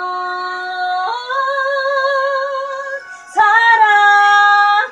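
A female voice singing a slow Korean song, holding three long notes with vibrato, the last one, near the end, the loudest.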